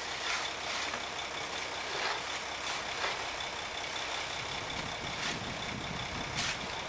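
Ready-mix concrete truck running steadily while wet concrete slides down its chute into a wooden form, with irregular scrapes and knocks of a shovel and a hoe working the concrete.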